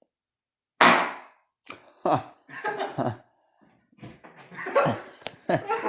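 A sudden loud pop with a short buzzing decay about a second in, as a small loudspeaker is plugged straight into mains power from a wall outlet; voices and laughter follow.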